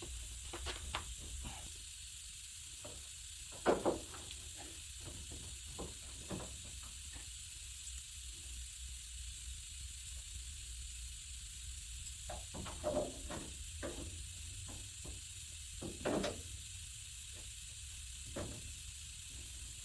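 Scattered light knocks and clunks of a sheet-metal patch panel being handled and test-fitted against a truck body, a few louder ones, some in quick pairs, over a steady faint hiss.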